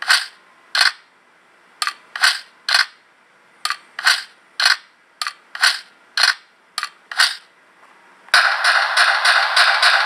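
Small 8-ohm 0.5-watt speaker of a custom recording-IC sound-effect module playing back its programmed effects as a button is pressed and released: a string of short, sharp cracks, often in pairs about half a second apart. Near the end they give way to a continuous rapid rattling sound.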